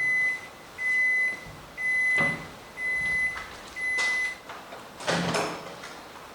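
Microwave oven sounding its end-of-cycle alert as the two-minute heating finishes: five long, high beeps about a second apart. A short clunk follows about five seconds in.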